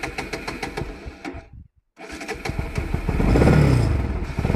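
Motorcycle engine running at a steady idle, its firing pulses evenly spaced. The sound cuts out briefly, then the engine is revved, its pitch rising and falling, and a second rev begins near the end.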